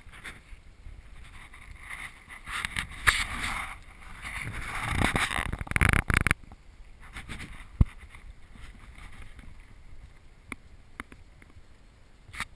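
Hobie sailing kayak under way: water against the hull and wind rushing on the microphone, swelling for a few seconds in the middle, with a couple of sharp knocks from the hull or its gear.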